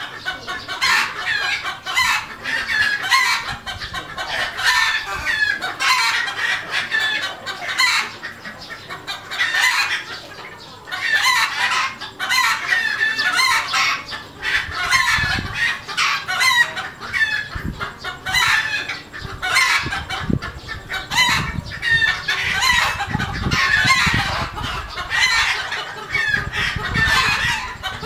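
A flock of red junglefowl and chickens clucking and calling without a break, with roosters crowing in among the calls.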